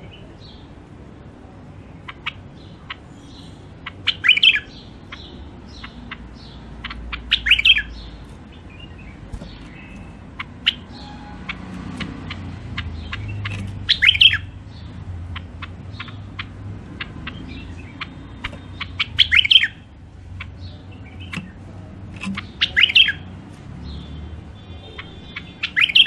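Caged bulbul singing: five short, loud warbled phrases a few seconds apart, with scattered sharp single chips between them.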